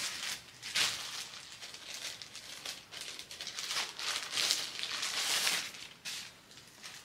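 Plastic packaging crinkling and rustling on and off as baby clothes are pulled out of a plastic bag and handled.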